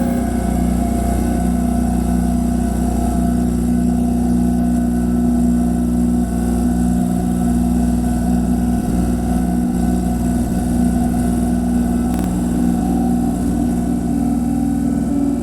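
Harsh noise drone made from a mangled refrigerator sound: a loud, steady low hum with several held tones over a rumble, with no breaks.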